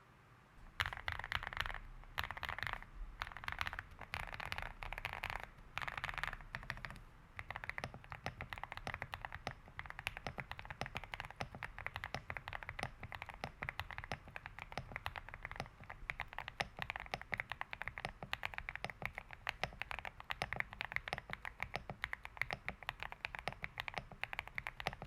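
Mechanical keyboard being handled, with several seconds of dense scraping and clattering, then typed on in a fast, steady run of key clicks.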